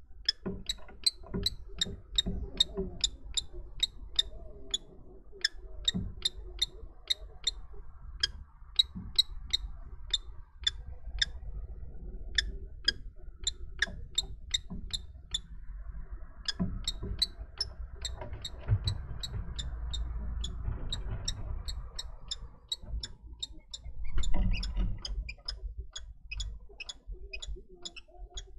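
A male common kestrel gives a long series of short, sharp ticking calls, about two to three a second, breaking off briefly twice, as he coaxes the female into the nest box. Near the end comes a brief louder rustle of wings and scrabbling as a bird moves about the box.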